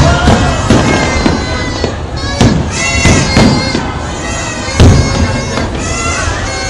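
Fireworks display: shells bursting in a string of booms, the loudest at the very start and about five seconds in, over a dense layer of many high, droning horn-like tones.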